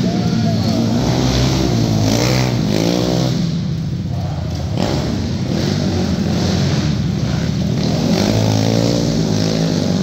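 Several racing quad engines on a dirt oval, revving up and backing off in turn, so the pitch rises and falls again and again.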